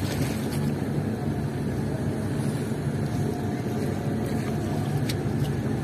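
Boat engine running steadily with a low, even rumble.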